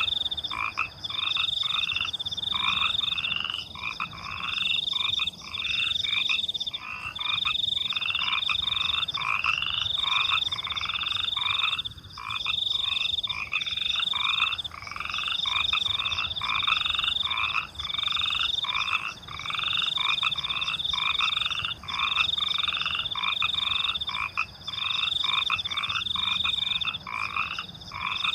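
A chorus of frogs croaking in quick, repeated calls, with a high trill of crickets over it that comes in pulses of about a second with short breaks between.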